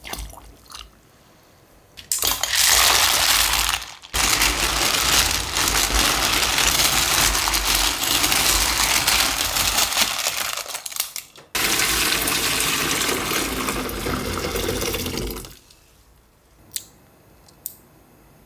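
Cockles being stirred with a ladle in a steel pot of hot water: shells clattering and scraping against the pot with water sloshing. The stirring comes in three long loud stretches, with short breaks about four and eleven seconds in. A few light shell clicks come near the end.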